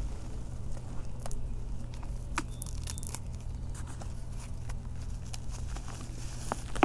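Hands crumbling and breaking dry, dusty chunks of reformed dirt or chalk: soft crunching with scattered small clicks of falling crumbs, over a steady low hum.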